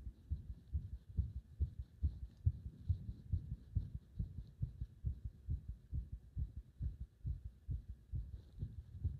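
A human heart beating under compression, which the title presents as a heart close to stopping. It comes through as a continuous run of low thumps, about three a second and uneven in strength.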